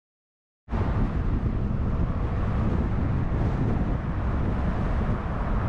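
After a moment of dead silence, a steady rushing noise cuts in abruptly: a moving car's road noise mixed with wind buffeting the microphone, heaviest in a low, fluttering rumble.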